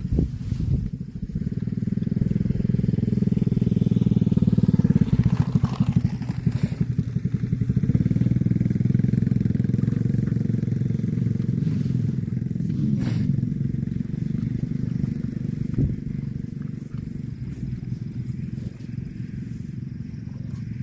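An engine running steadily with a fast, even pulsing beat, strongest in the low range, rising in level over the first few seconds and easing somewhat in the last few seconds.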